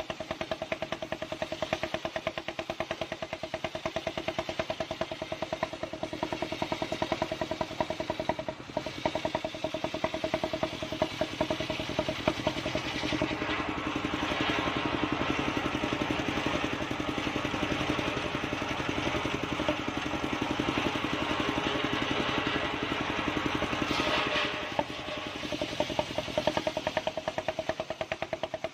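Engine-driven circular sawmill blade ripping a mindi log: a steady engine hum with a fast, even beat underneath. From a little before halfway the cutting grows louder with a bright hiss, then eases off suddenly near the end, leaving the engine and spinning blade.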